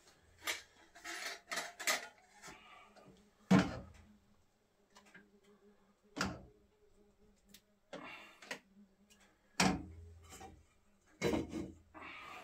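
Sharp knocks and clatters of hard objects being handled: light clicks and rattles at first, then four louder knocks at uneven gaps.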